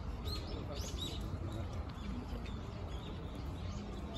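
Small birds chirping in short high notes, a few at a time, over a steady low background rumble.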